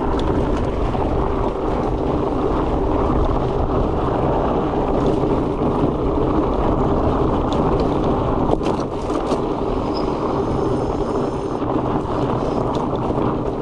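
Steady wind noise buffeting the microphone over the rolling rumble of a fat-tyre mountain bike on a dirt trail, with a few sharp clicks and knocks about nine seconds in.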